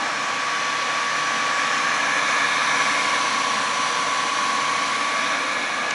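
CM-2 Monoset tool and cutter grinder running with both heads on: a steady motor whir with a faint high whine held at an even pitch.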